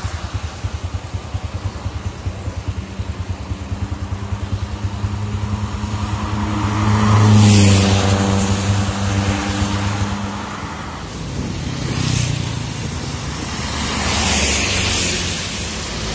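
Scania 124G truck's big straight-six diesel idling with a steady, fast throb. Vehicles pass on the wet road with a hiss of tyres, the loudest about halfway through and two more in the second half.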